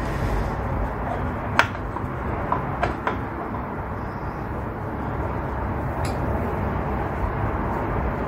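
Benchtop lathe-mill combination machine running steadily as a wooden block is worked in its vise, with a few sharp metallic clicks from its handles and feed.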